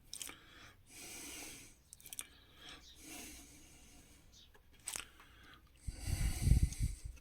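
Quiet handling noises of hands fitting a small washer and part into a radio's plastic case: light scrapes and small clicks, a sharp click about five seconds in, then a louder low rumbling knock of the case being handled near the end.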